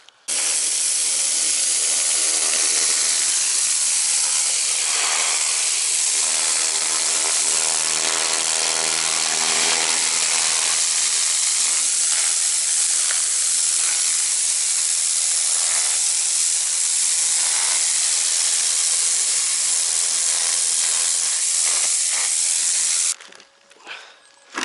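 High-pressure washer spraying moss off roof tiles: a loud, steady hiss of the water jet over the pump motor's steady hum. It cuts off abruptly about a second and a half before the end.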